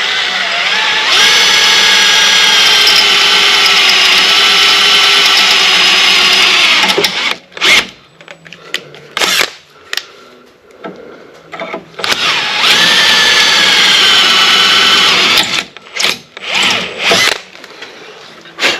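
Power drill boring out a broken bolt, running in two long steady pushes of about six seconds and about three seconds, with a steady whine; the cut is getting tougher near the outside of the hole. Short knocks and clicks come between the two runs.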